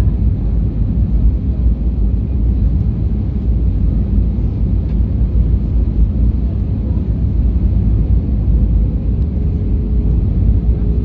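Steady cabin roar inside an Airbus A320-232 on descent, engine and airflow noise heard from a window seat behind the wing, heaviest in the low rumble. A faint steady tone comes in near the end.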